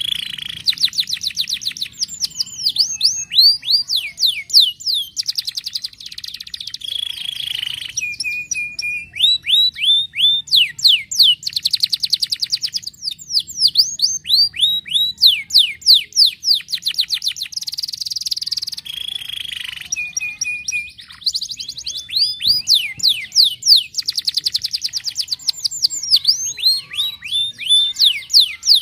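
Domestic canary singing a long, unbroken song of fast trills, rapid runs of repeated down-sweeping notes, phrase after phrase, with a few short steady held notes in between.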